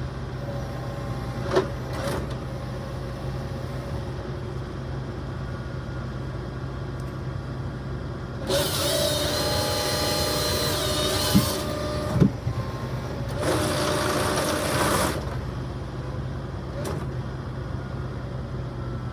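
A forestry processor's engine running steadily while its saw makes two cuts through Japanese cedar logs: a long cut with a high whine about halfway through, then a shorter one a second later. A few sharp knocks sound between and before the cuts.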